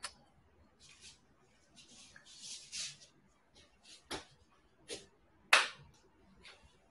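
Handling and movement noise close to a phone microphone: scattered soft rustles, then a few sharp clicks or taps about four, five and five and a half seconds in, the last the loudest.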